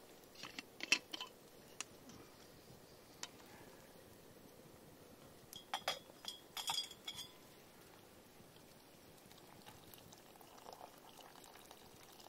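Stainless steel pot lid clinking against the hanging camp pot as it is lifted off, a cluster of ringing metal clinks about six seconds in, with a few lighter clinks in the first second. Near the end, water starts pouring from a steel vacuum flask into the pot.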